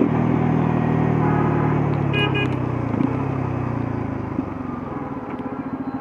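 Bajaj Pulsar F250's single-cylinder engine slowing off the throttle, its note falling steadily and quieting, then picking up again as a low pulsing beat near the end. A brief horn beep sounds a little over two seconds in.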